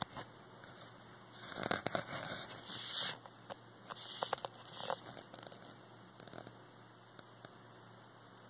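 Short bursts of rustling and scratching with a few sharp clicks, the first from about a second and a half in and another around four seconds in.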